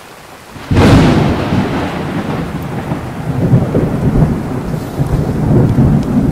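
Thunder: a sudden loud crack about a second in, then a low rumble that rolls on, swelling and fading.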